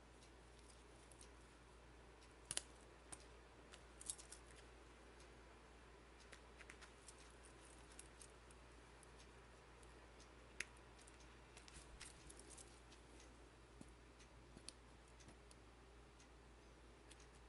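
Faint, scattered small metallic clicks and taps from a miniature coilover shock absorber keychain being handled in the fingers, its spring, metal body and key ring knocking together. The sharpest clicks come about two and a half seconds in, at about four seconds and near eleven seconds.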